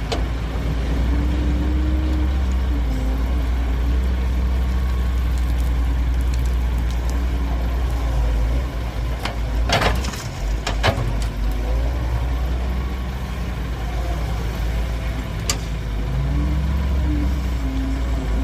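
Heavy diesel engines of an excavator and a dump truck running, their pitch shifting as they work. About ten seconds in there is a short burst of hiss, then a sharp knock, and another knock near the end.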